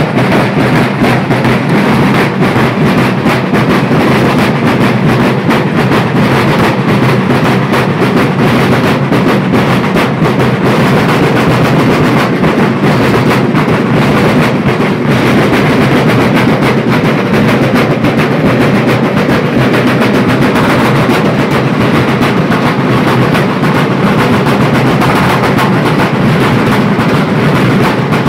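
A Sicilian tamburinata: a large band of rope-tensioned wooden-shell drums beaten with sticks, playing together in a loud, dense, continuous rolling rhythm.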